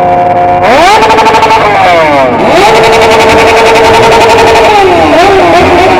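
Motorcycle engine with a loud exhaust being revved hard. It climbs sharply about a second in and falls away, then is held at high revs for about two seconds, then dips and rises in quick blips near the end.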